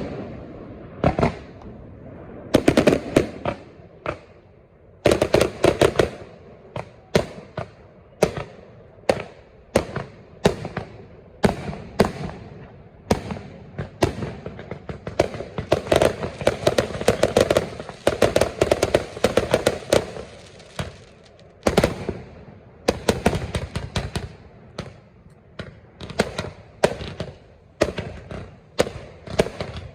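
Fireworks display: a continuous run of sharp aerial shell bangs, thickening several times into dense salvos of rapid crackling.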